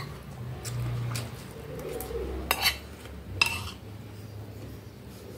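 Metal fork clinking and scraping against a glass plate, a handful of sharp clinks with the loudest about two and a half and three and a half seconds in, over a low steady hum.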